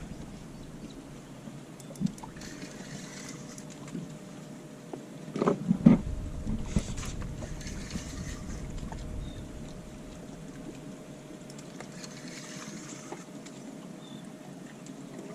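Water lapping and sloshing against a small fishing boat's hull, with a faint steady hum underneath. A cluster of loud knocks and thumps comes about five and a half seconds in.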